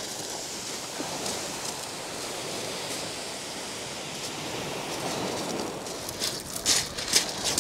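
Steady wash of sea surf breaking on a shingle beach, with a few short crunches near the end as feet step on the shingle.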